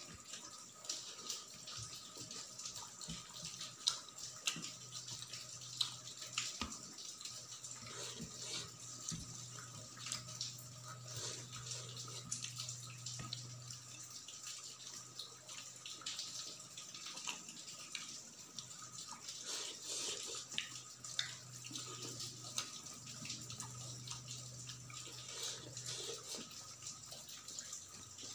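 Close-miked eating by hand: fingers squishing and mixing soft cooked rice with curry on a steel plate, and wet chewing, made up of many small clicks and squelches.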